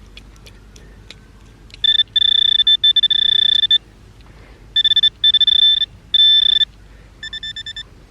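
Metal detecting pinpointer sounding its electronic alarm tone while it is held against a buried target in loose soil. The tone holds for two long stretches with brief breaks, then pulses more quietly near the end.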